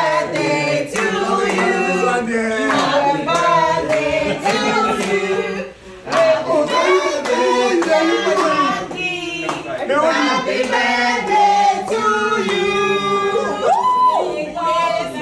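A group of people singing together in a crowd, with hand-clapping along.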